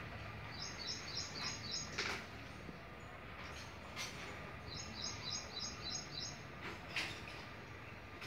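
A small bird chirping in two short runs of quick high notes, about four a second, one near the start and one about five seconds in, over steady background noise and a few faint clicks.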